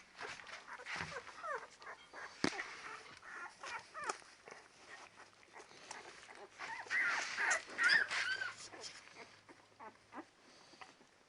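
A litter of ten-day-old Labrador retriever puppies squeaking and whimpering in many short, high calls, busiest about seven to eight seconds in. A single sharp click about two and a half seconds in.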